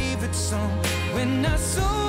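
Background music: a slow pop ballad with long held melody notes over a steady low bass.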